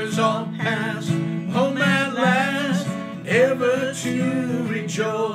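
A man singing a gospel hymn with vibrato to his own strummed acoustic guitar.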